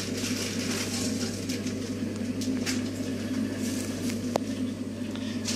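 A steady low hum with faint background hiss, and a single faint click a little past four seconds in.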